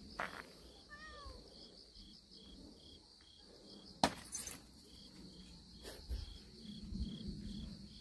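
A cat gives one short meow about a second in, over insects chirping steadily about twice a second. A sharp click sounds about four seconds in.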